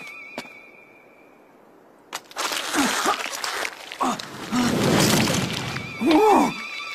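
Cartoon sound effect of loud cracking and breaking, cutting in suddenly about two seconds in after a faint wavering musical tone dies away. It ends with a short startled vocal exclamation.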